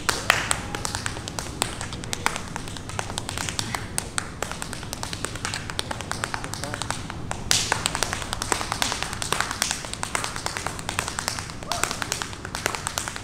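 Tap shoes striking a wooden dance floor in a fast, uneven run of sharp taps, danced without music. A short burst of crowd noise rises about seven and a half seconds in.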